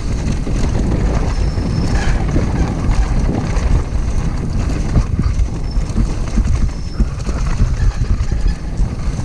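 Downhill mountain bike riding fast down a dirt trail. Wind rumbles on the action camera's microphone over tyres on loose dirt and a steady clatter of knocks and rattles from the bike over bumps.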